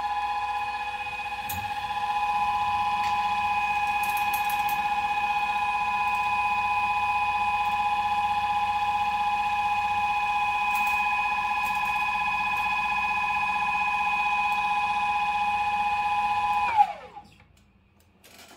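Bonex Discovery RS underwater scooter's upgraded electric motor running at a steady speed out of the water, a high whine of several pitches at once. About 17 seconds in it shuts off and winds down with a quickly falling whine, leaving near silence.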